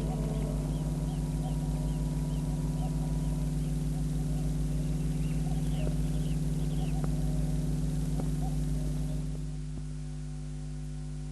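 Steady low electrical mains hum from an old film soundtrack, with faint short high chirps repeating about twice a second over the first half, like a small bird or insect. The level drops a little about nine and a half seconds in, leaving only the hum.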